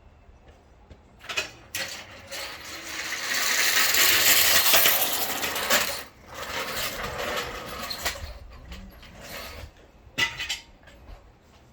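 Metal hand tools clattering and clinking, with a long loud rattling stretch a few seconds in and a sharp click near the end.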